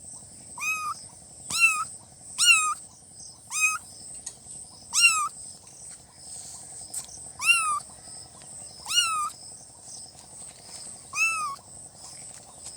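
Kitten meowing over and over in short, high-pitched calls that rise and then fall, roughly one a second, with a longer pause about halfway through.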